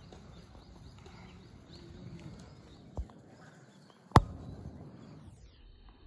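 Faint, rapid high bird chirps over a low outdoor rumble, then a knock about three seconds in and a sharp, loud click about a second later.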